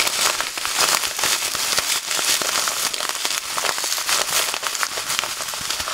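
Plastic packet of bread crumbs crinkling as it is squeezed, with crumbs pouring out onto a plate: a dense, continuous crackle of many small clicks.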